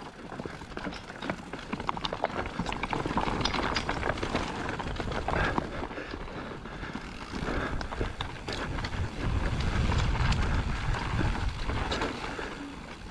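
Electric mountain bike riding fast down a rocky trail: tyres crunching over loose stone, with a constant clatter of sharp knocks and rattles from the bike over the rough ground. About nine seconds in, a stretch of low wind rumble on the microphone grows louder for a couple of seconds.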